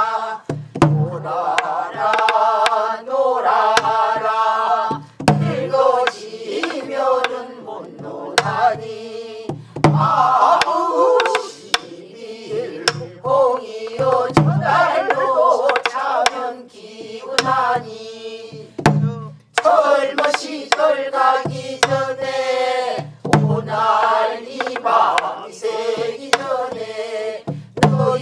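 A mixed group of voices sings a Korean Namdo folk song together in a heavily ornamented, wavering style. They are accompanied by buk barrel drums: low drum beats with sharp stick clicks, in a slow rhythm.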